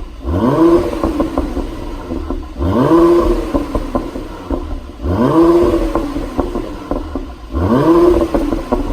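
Mercedes-AMG GLC 43's twin-turbo V6 blipped four times, about every two and a half seconds, each rev rising quickly and falling back with a string of exhaust pops and crackles from a pop-and-crackle tune.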